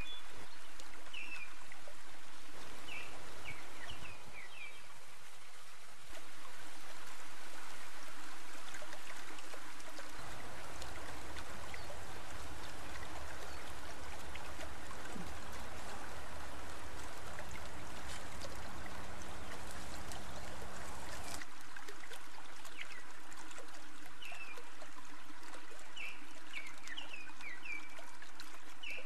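Outdoor ambience: a steady rushing hiss, with short bird chirps near the start and again near the end, and a low rumble joining in for about the middle third.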